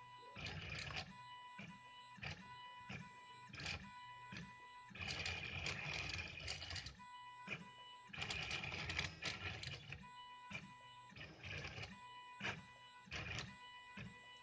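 CL-260 3D printer drawing with a ballpoint pen, its motors whirring in short stop-start moves, with two longer, louder runs of movement in the middle.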